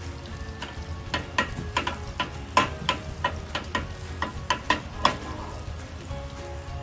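Butter melting and bubbling in a small stainless-steel saucepan over a gas flame, at the start of a brown-butter sauce: a sizzle broken by a quick run of sharp spitting pops up to about five seconds in, then a calmer sizzle.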